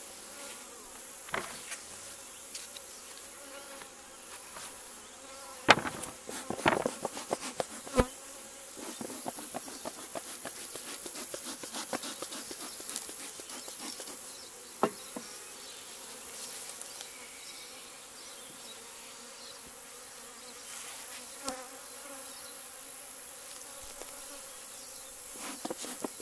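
Honeybees buzzing steadily around an open hive, with a cluster of knocks and clatters about six to eight seconds in and a couple of single knocks later from the hive and its gear being handled.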